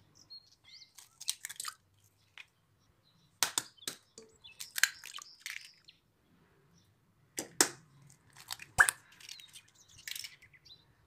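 Eggs cracked one after another on the rim of a stainless steel mixing bowl: a series of sharp shell cracks and taps, with softer crackling and wet plops between them as the eggs drop into the bowl. The loudest crack comes near the end.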